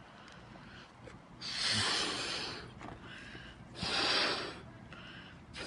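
A person blowing into a rubber balloon to inflate it: two long breaths of rushing air, the second shorter than the first.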